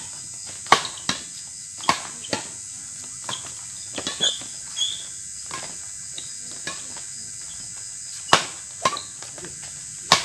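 Badminton rackets striking a shuttlecock in a fast doubles rally: a string of sharp cracks, some well under a second apart, with a lull in the middle. Behind them runs a steady high insect trill.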